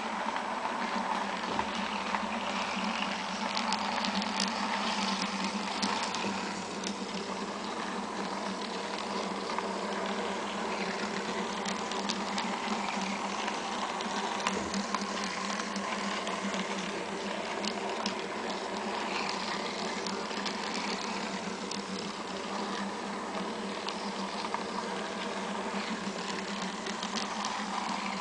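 Model train running steadily around its track: a constant small-motor whir and gear hum, with scattered light clicks from the wheels on the rails.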